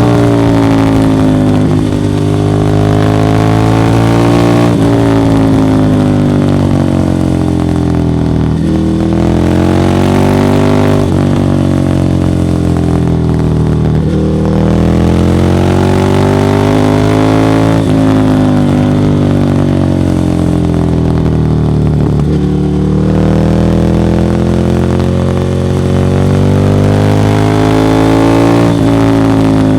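Ducati Monster 1100 EVO's air-cooled L-twin running loudly through a Termignoni exhaust. Its pitch keeps swinging up and down every few seconds, with a handful of sudden shifts.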